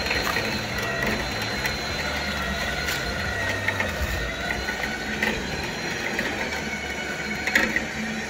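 Trailer winch reeling in its cable, a steady mechanical running with a gear whir, as it drags a rusty 1946 Hudson pickup toward the trailer bed. A few sharp knocks come through, the loudest near the end.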